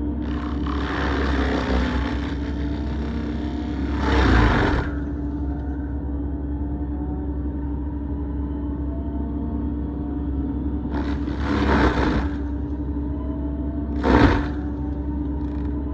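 Excavator-mounted Fecon forestry mulcher running steadily with a constant hum, broken by short loud grinding bursts as its spinning toothed drum bites into a standing tree trunk: a long one peaking a few seconds in, another past the middle, and a brief one near the end.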